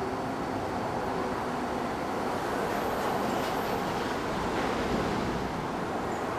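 Shinkansen 300 series train running past at the platform, a steady noise of wheels and motors that swells a little midway, with a faint high whine partway through.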